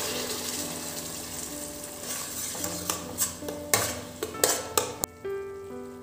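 A puree sizzling loudly as it is poured into hot oil in a kadai, the sizzle slowly dying down. From about three seconds in come several sharp metal clinks and scrapes against the pan, over soft background music.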